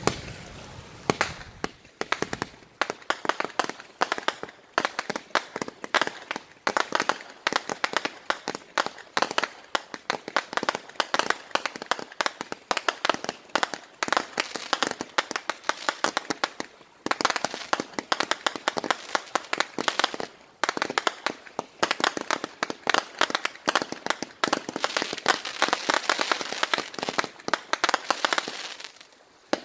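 Fireworks firing a rapid, dense run of sharp pops and crackles as small aerial shells burst into crackling stars. The crackling breaks off briefly twice a little past halfway, then carries on.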